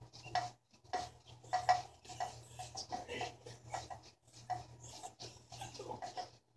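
Resistance band rubbing and scraping as it is pulled during exercise: repeated short strokes, two or three a second.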